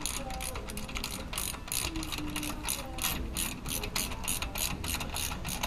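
Ratchet wrench clicking steadily, about four clicks a second, as an Allen-head brake caliper mounting bolt is run in.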